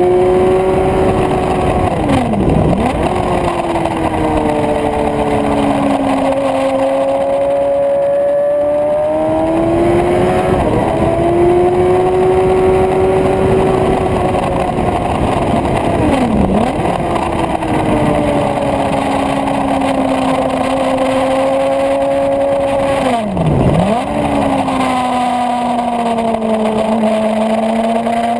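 Suzuki GSX-R750's inline-four engine running hard on track, heard from onboard. Its note rises and sags as the throttle works through the corners and down the straight, and about four times it drops sharply and recovers at once. A steady low rush of wind lies underneath.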